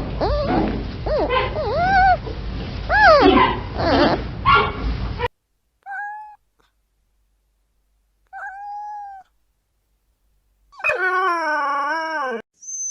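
Dog whining and yelping in rising and falling cries, which stop abruptly after about five seconds; then two short, even whines and, near the end, one longer wavering howl.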